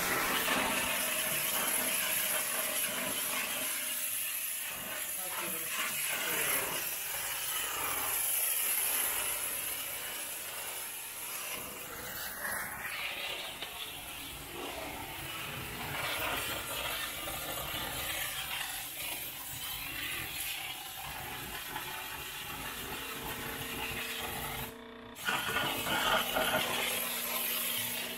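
Handheld steam cleaner hissing steadily as its nozzle is worked over a stainless-steel sink and the counter beside it, steaming the surfaces to kasher them. The steam cuts out briefly about 25 seconds in, then starts again.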